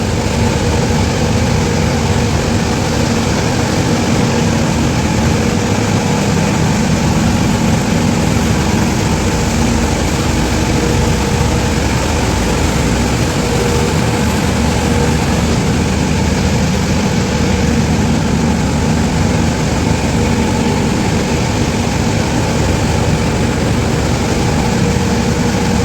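Large air-washer blowers running steadily: a loud, even rush of air with a low machine hum underneath. These are centrifugal supply fans rated at 1 lakh cmh and 30 kW each.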